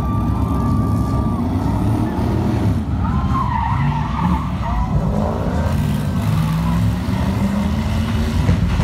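Stunt cars revving their engines and skidding, with a heavy engine rumble throughout and tyre squeals rising and falling about three to four seconds in.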